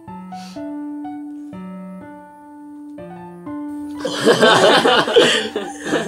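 Simple piano background music with slow held notes; about four seconds in, several young men start laughing loudly over it.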